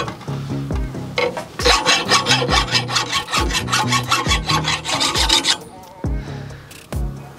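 Steel hand file drawn in rapid scraping strokes, several a second, across the edge of a steel mattock blade held in a vise, sharpening it and knocking off dents. The strokes run for about four seconds from a second and a half in, over background music with a steady beat.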